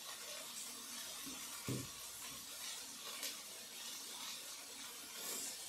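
Faint steady sizzling hiss of chopped vegetables sautéing in an Instant Pot's inner pot, with one soft knock about two seconds in.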